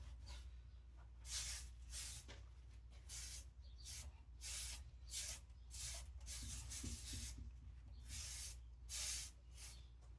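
Short scratchy rubbing strokes on copper pipework, about one a second, irregularly spaced, over a low steady hum.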